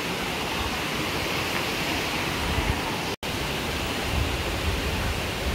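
Steady rushing noise with irregular low rumbles, cutting out for an instant a little after three seconds in.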